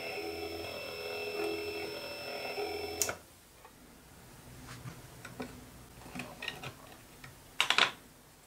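Axminster Sieg bench lathe running under power feed: a steady motor and gear whine with a faint regular ticking, which stops abruptly with a click about three seconds in. After that come light clicks of a digital caliper and small parts being handled on a wooden bench, with a short, louder scrape near the end.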